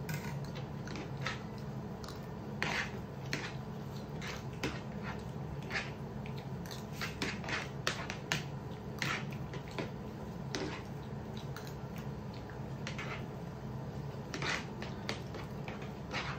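Spoons clicking and scraping on plates as two people eat rice fast, light irregular clicks over a steady low hum.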